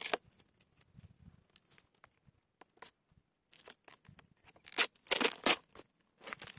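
Brown packing tape and cardboard being torn off a rod's cardboard shipping tube: a run of short, rasping rips, loudest in two clusters, about five seconds in and again near the end. The tube is so tightly packed that the rod would not come out.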